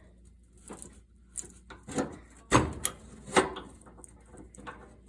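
Antique monkey wrench gripping and levering bent sheet steel on a John Deere 314 lawn tractor to straighten it: a series of metal clunks and creaks, the loudest about two and a half and three and a half seconds in.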